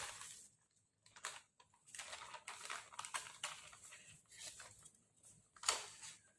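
Faint, intermittent crinkling and rustling of the paper of a homemade kite being handled, with a louder rustle near the end.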